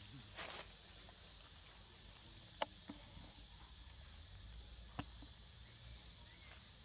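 Quiet outdoor background with a steady high hiss, a short rustle about half a second in, and two sharp clicks about two and a half seconds apart, the first the louder.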